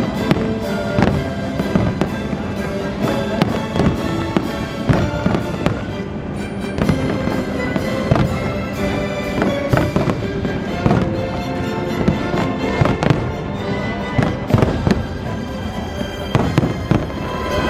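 Fireworks going off in rapid succession, many bangs and crackles one after another, with music playing alongside.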